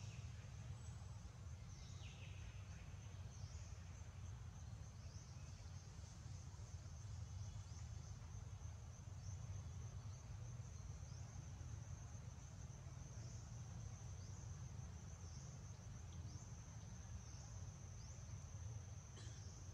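Insects buzzing in a steady high-pitched drone, with a few short chirps about two seconds in and near the end, over a steady low rumble.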